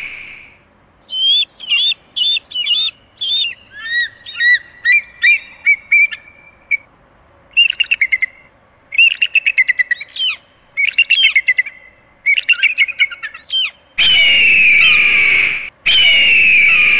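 Bald eagle calls: bursts of quick, high chirping and piping notes that fall in pitch, then near the end two loud, long, harsh screeches.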